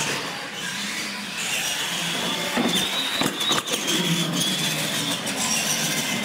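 Radio-controlled monster trucks racing on a concrete floor: a high electric motor whine climbs in pitch over the first three seconds and then holds, with tyre noise and a few sharp knocks about three and a half seconds in.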